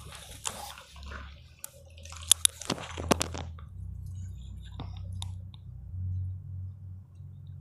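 Wet sponge squishing against skin, with dripping water, as a face pack is wiped off the face. It is busiest in the first three and a half seconds, with a few sharp wet clicks around two to three seconds in, and a steady low hum runs underneath.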